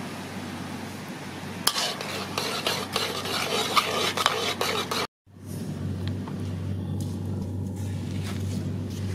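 Thick brown sauce sizzling and bubbling in a pan. A metal spatula then stirs and scrapes quickly around the pan for about three seconds, and the sound cuts off abruptly. After that comes a steady low hum.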